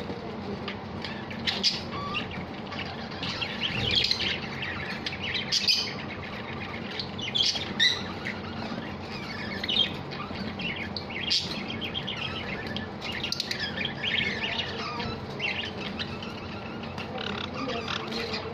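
A small flock of caged Java sparrows calling, with short high chirps and chip notes coming irregularly throughout.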